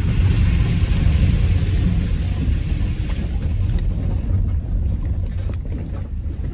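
Van driving slowly over a rough, puddled farm track, heard from inside the cab: a steady low rumble of engine and tyres. Water hisses from a puddle under the wheels, fading over the first couple of seconds, and stones tick under the tyres later on.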